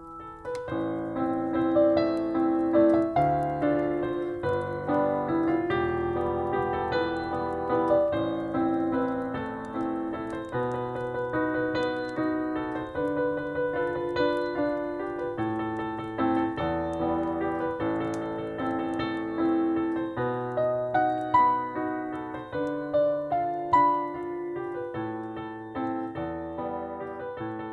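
Solo piano playing a melody over sustained chords, with faint crackling of a fireplace in the background.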